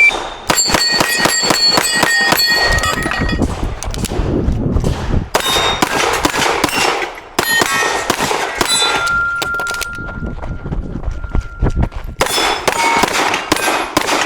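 Dan Wesson DWX pistol fired rapidly in several quick strings, with steel knockdown targets clanging and ringing on the hits.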